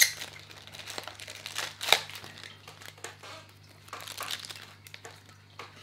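Thin clear plastic packaging bag crinkling as a small part is taken out of it, in irregular crackles, the two sharpest at the very start and about two seconds in.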